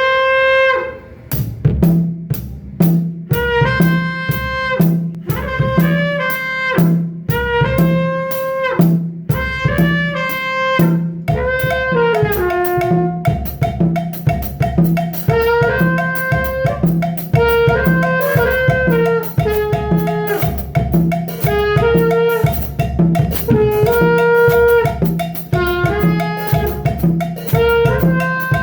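Jazz-style music with a drum kit keeping a steady beat under a sustained horn melody.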